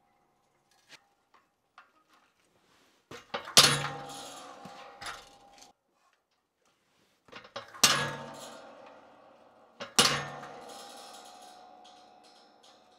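Hammer striking a teardrop punch held on hot steel at the anvil: three heavy blows, each after a few light setting taps, each leaving a metallic ring that fades over a second or two.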